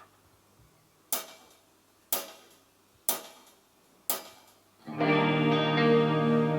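A count-in of four sharp clicks about a second apart. Then, near the end, the band comes in with electric guitar chords held through distortion and effects, opening the song.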